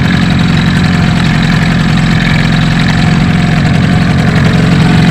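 Small fishing boat's outboard motor idling steadily, warming up before trolling.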